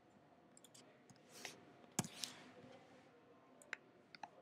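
Faint, scattered clicks of a computer mouse and keyboard over quiet room tone, the sharpest a pair about halfway through.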